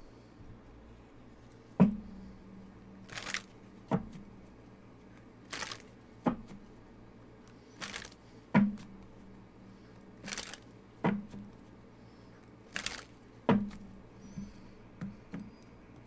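Tarot cards being dealt one at a time onto a table: a short swish as each card comes off the deck, then a sharp tap as it is laid down, six times at about two-and-a-half-second intervals.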